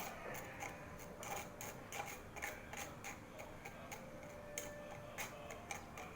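Light, irregular clicks and taps of kitchen utensils, several a second, as the strainer and spoon are handled after straining milk.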